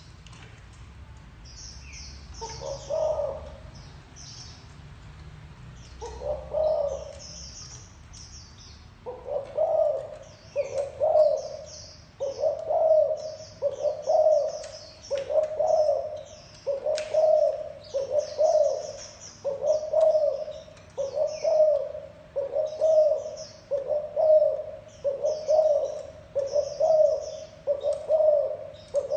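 Spotted dove cooing its repeated low 'gù' note: two spaced coos, then from about a third of the way in a steady series of about one coo a second. Small birds chirp faintly and high above it.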